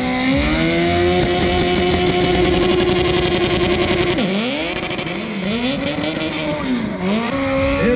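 Drag-racing motorcycle engine held at high revs during a burnout. About four seconds in the revs drop sharply, then it revs up and down several times and settles to a steady hold near the end.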